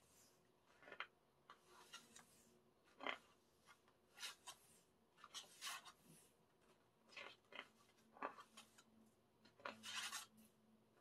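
Faint rustles and swishes of glossy paper pages being turned and handled in an album photo book, one every second or so, the loudest about three seconds in and near the end.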